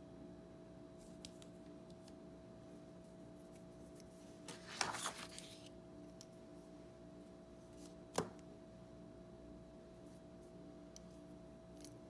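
Faint handling noises of a metal mechanical pencil and its clear plastic case: a short cluster of clicks and rustling about five seconds in, and a single sharp tap about eight seconds in as something is set down on the table, over a steady low hum.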